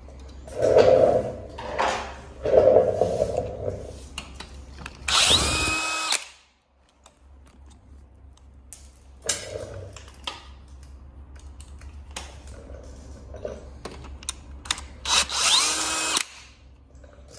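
Cordless drill/driver backing out the two screws that hold the e-bike's disc-brake caliper to the frame. The motor whirs in short bursts, the longest about five seconds in and again near the end, its pitch climbing as it spins up.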